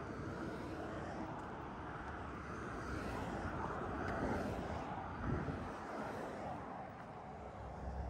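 Steady low rumble of distant engine noise, with one short thump a little past halfway.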